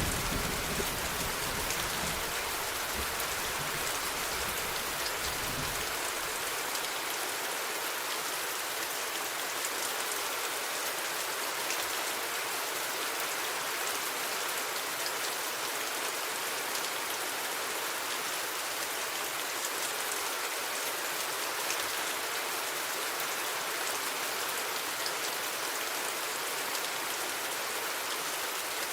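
Steady rain falling, an even hiss of drops on surfaces. A low thunder rumble dies away over the first few seconds.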